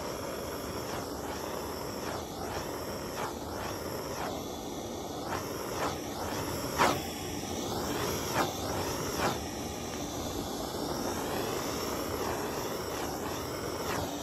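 Handheld gas torch burning with a steady hiss, with a few faint knocks and clicks partway through.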